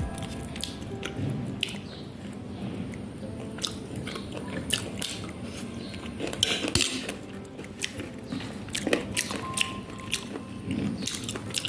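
Close-miked mukbang eating sounds: a person chewing and biting food, with irregular wet clicks and smacks of the mouth.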